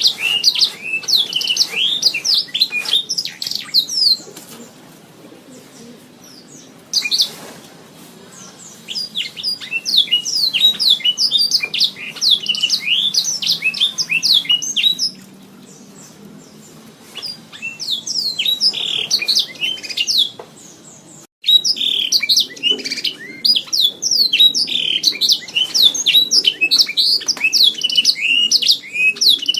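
Canary singing: long, fast trills of short, high chirps in several phrases, with pauses of a few seconds between them.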